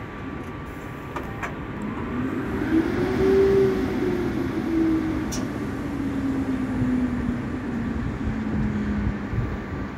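MI2N double-deck electric train (Z 22500) moving off slowly: a whine from its traction equipment rises in pitch about two seconds in, then falls back in steps, over a low running rumble.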